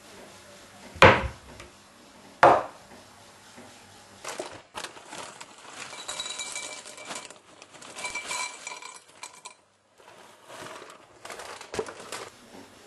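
Kitchenware being handled: two loud knocks about one and two and a half seconds in, then several seconds of irregular clinking and rattling of a bowl on a worktop, with a couple of short ringing chinks.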